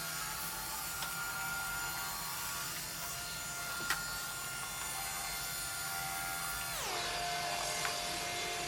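iRobot Roomba 971 robot vacuum running with a steady whine of its motors, with a light knock about four seconds in. Near the end the whine glides down and settles at a lower steady pitch as the robot finishes its cleaning run.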